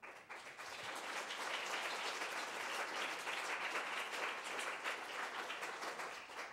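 Audience applauding: many hands clapping, starting suddenly, holding steady, then dying away near the end.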